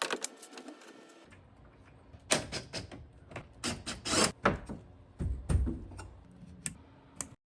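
Hand tools and metal parts on a Jeep TJ liftgate clicking and knocking irregularly during hinge and strut work. The clicks and knocks come thickest a couple of seconds in, with a duller thud about two-thirds of the way through.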